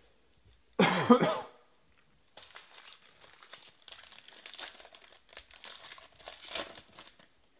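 A short, loud cough about a second in, then the crackling and crinkling of a silver foil card-pack wrapper being torn and peeled open by hand.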